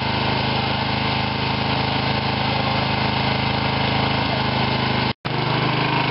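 Old Sears garden tractor's engine running steadily at idle, a constant drone. The sound drops out for a split second about five seconds in.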